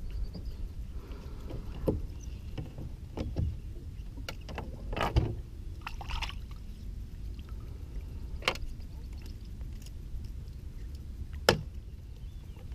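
A bowfishing-shot snakehead being hauled in by hand at the side of a boat. There are about five sharp knocks against the boat, the loudest near the end, and splashing in the water around five to six seconds in.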